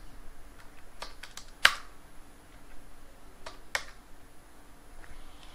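Computer keyboard keystrokes: a few separate key presses typing a short answer and hitting Enter, the loudest about one and a half seconds in and two more near the middle.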